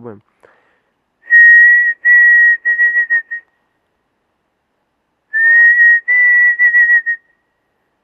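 A man whistling a bird-like call to lure a bird: two phrases, each two longer level notes followed by a few quick shorter ones, loud and breathy. The second phrase begins with a slight upward slide.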